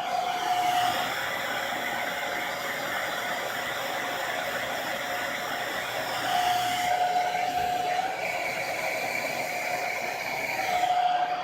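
Blu turbo ionic hair dryer running steadily as hair is dried, its fan rushing with a whine that comes and goes, before it is switched off abruptly at the very end.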